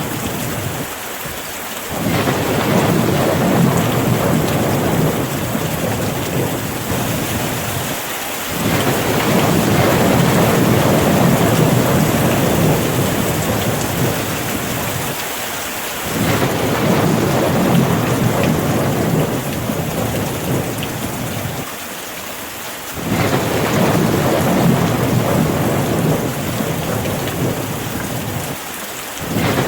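Steady rain with a low rumble of thunder beneath it. The rumble swells and then falls away briefly about every seven seconds while the rain hiss carries on.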